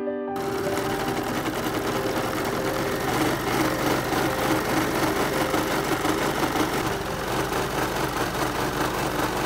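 Electric sewing machine running fast and steadily, a rapid even needle chatter that starts abruptly just after the beginning, as the fabric for a skirt is stitched.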